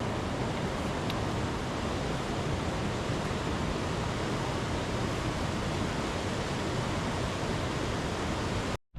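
Steady, even rushing of a fast-flowing mountain river, unchanging in level, cut off suddenly near the end.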